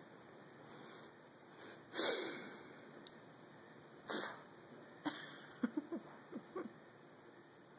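French bulldog snorting and sniffing at pizza held close to its face: one loud snort about two seconds in, two more a couple of seconds apart, then a quick run of short, squeaky wheezing snorts.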